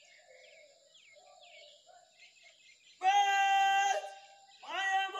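Birds chirp faintly. About three seconds in, a drill commander shouts a long, drawn-out word of command on one held pitch for about a second, and a second drawn-out command begins with a short upward slide near the end.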